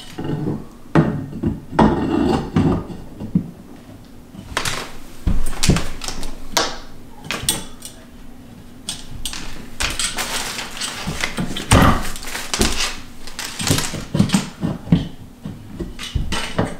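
Irregular knocks, clicks and clatter of the metal tube base of an egg swing chair stand being handled and fitted on a hardwood floor, with a few louder knocks spread through.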